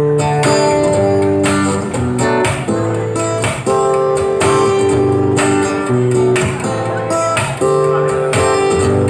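Live band playing a song's instrumental intro on guitars: plucked notes and strummed chords at a steady, even pace, with no singing yet.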